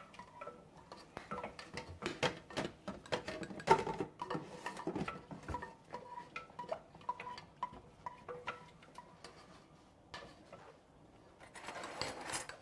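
Metal slotted spoon clinking and scraping against a pan while fishing chunks of ginger out of the oil: irregular taps and knocks, busiest for the first six seconds or so, then sparser.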